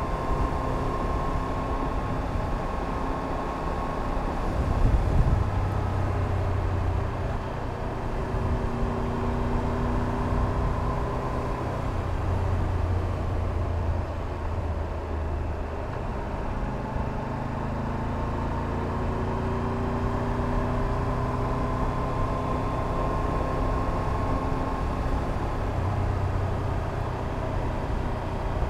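Triumph Tiger 1200 Rally Pro's three-cylinder engine running at a steady cruise, its pitch rising and falling gently with road speed, over a steady low rumble of wind and road noise. A brief louder thump comes about five seconds in.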